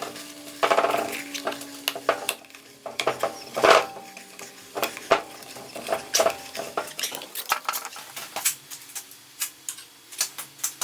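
Steel parts clinking and knocking against each other as they are handled, with some strikes leaving a brief metallic ring. The clinks come irregularly, several a second, the loudest about a second and four seconds in.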